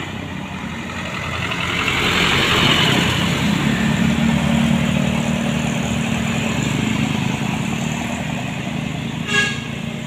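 A medium bus's diesel engine and tyres drive past close by, growing louder over the first three seconds, then a steady engine drone as the bus pulls around a bend. A short horn toot sounds near the end.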